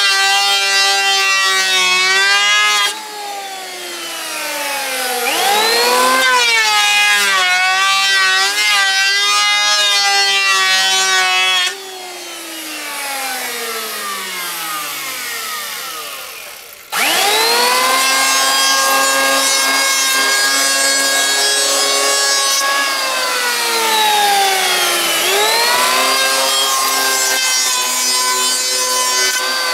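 Electric hand planer's motor whining at speed. It is switched off and coasts down with falling pitch about three seconds in, restarts with a rising whine, winds down slowly again from about twelve seconds, and starts up sharply once more just past halfway.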